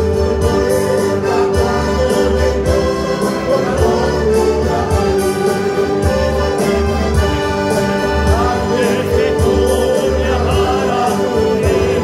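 Church choir singing a worship chorus over band accompaniment with a steady beat; the singing voices stand out more near the end.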